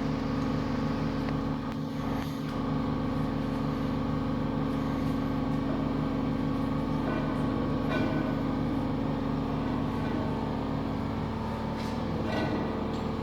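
A workshop machine running with a steady, even hum, with a few faint light clicks over it.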